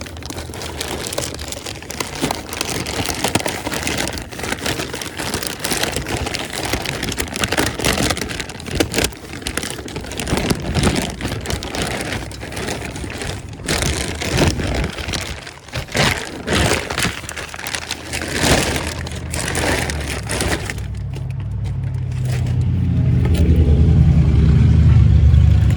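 Rustling, crinkling and clicking from hands handling parts and packaging during radiator hose work. Over the last few seconds a low, steady vehicle-engine drone builds up and becomes the loudest sound.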